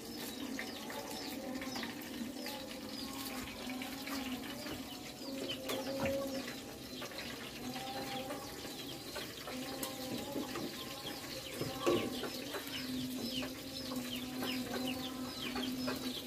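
Chickens clucking, with many short, high, falling chirps repeating one after another. A single knock about twelve seconds in.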